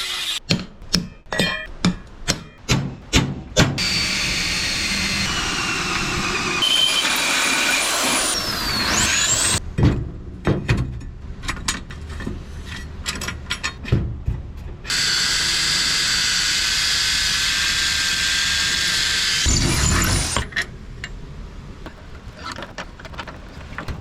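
Workshop metalwork on steel angle: a quick run of about eight hammer blows, then a power tool such as an angle grinder whining steadily through two long cuts, with knocks and clanks in between.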